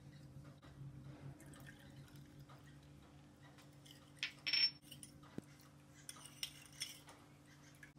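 Metal spoon stirring a thin liquid sauce in a small glass bowl, clinking and scraping against the glass. The loudest clinks come about halfway through, with a few more near the end, over a faint steady hum.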